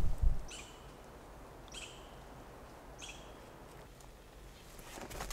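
A small bird gives three short, high calls about a second and a half apart over quiet forest background. A couple of low thumps come at the very start, and faint clicks near the end.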